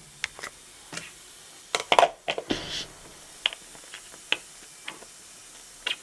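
A plastic food container and its lid being handled: scattered light clicks and taps, with a short rustle about two and a half seconds in.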